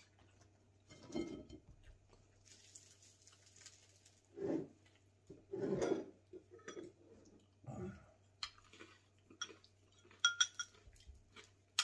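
Metal spoons clinking and scraping against ceramic bowls while eating, with a few sharp ringing clinks near the end, among several muffled lower sounds at the table.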